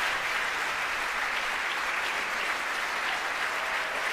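A crowd applauding and cheering steadily, greeting a successful Falcon 9 main engine cutoff and stage separation.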